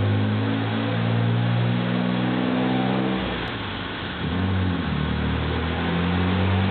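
1993 Mitsubishi 3000GT VR-4's twin-turbo 3.0-litre V6, fitted with GZP 16T turbos, running under load on an all-wheel-drive chassis dyno. The engine note eases off briefly about three to four seconds in, then picks up again.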